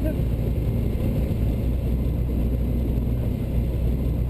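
Cessna 172 Skyhawk's piston engine and propeller droning steadily, heard inside the cabin during flight.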